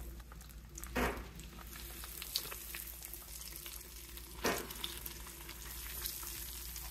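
Breaded chicken thighs frying in a skillet of oil held at about 300 degrees: a steady sizzle, with a brief louder surge about a second in and again about four and a half seconds in as each thigh is laid into the oil.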